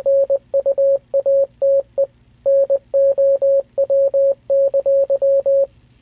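Morse code played by an online Morse code translator as a single steady mid-pitched beep tone, keyed in short dots and long dashes, spelling out the message "Evacuate now!". The beeping stops shortly before the end.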